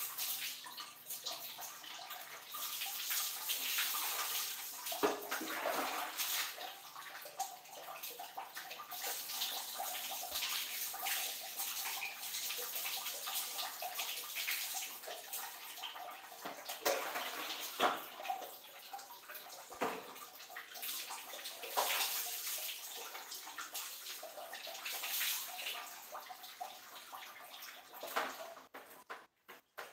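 Water pouring and splashing during a bucket bath, scooped from a plastic bucket with a dipper, with sharp splashes now and then.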